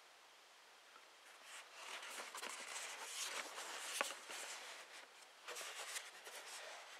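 Cardboard reel box being handled and turned over: an uneven rustling and scraping of card starting about a second and a half in, with a sharp tap about four seconds in and another near six seconds.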